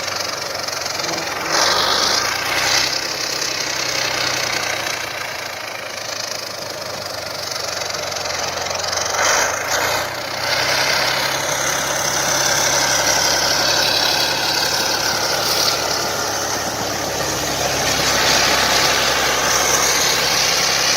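Heavy diesel crawler bulldozer's engine running steadily, with a dense mechanical clatter and rumble over a low engine note.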